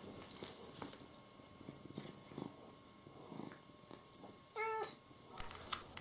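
Domestic cat purring softly under light rustling of fur and bedding, then one short meow held on a steady pitch near the end.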